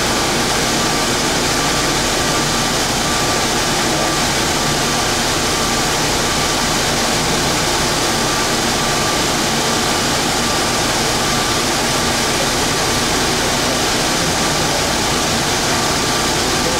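Steady rushing noise inside an underground airport people-mover car standing at a station with its doors open. A faint high tone comes and goes through it.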